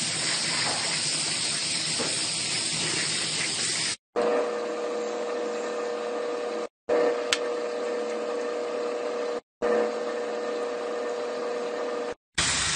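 Aerosol can of etch primer spraying in a steady hiss for about four seconds. Then a steady mechanical hum with a single click in it, cut off briefly twice.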